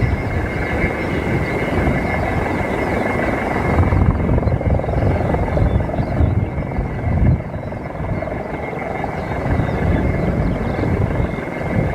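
Aircraft engine noise at an air show: a steady, loud rumble with a thin steady whine near the top, and wind buffeting the microphone.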